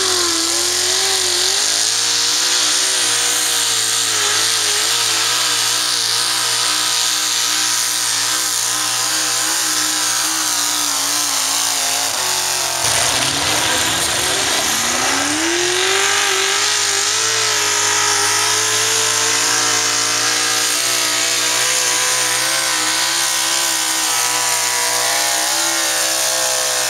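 Hot rod pulling tractor engine revving up and running hard under load, its pitch wavering as it pulls the sled. About twelve seconds in the sound cuts off abruptly, and an engine climbs up again from low revs and holds at full throttle, wavering, to the end.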